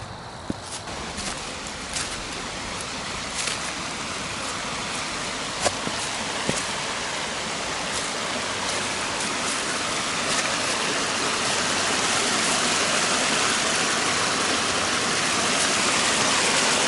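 Running water of a brook, a steady rush that grows louder throughout, with a few footsteps on the trail in the first several seconds.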